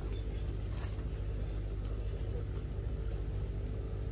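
Steady low mechanical hum with a thin constant tone above it, with a few faint ticks.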